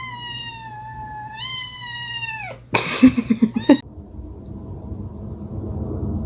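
A cat giving one long, drawn-out meow that rises in pitch about halfway through and falls away at its end. A short, harsh, rasping burst follows, then nothing but faint background noise.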